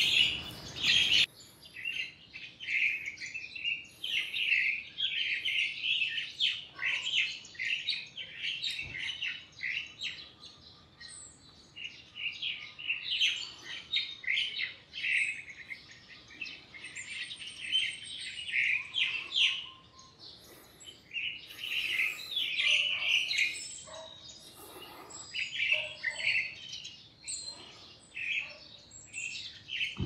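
Crested myna giving a continuous stream of short, high chirps with occasional lower notes, mimicking other birds; the calls are taken to be mostly imitations of juvenile yellow-vented bulbuls.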